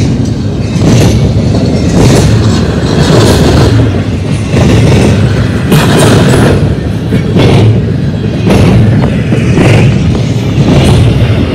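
Double-stack intermodal well cars of a freight train rolling past close by: a loud, continuous rumble of steel wheels on rail, with clacks about once a second as the wheel trucks go by.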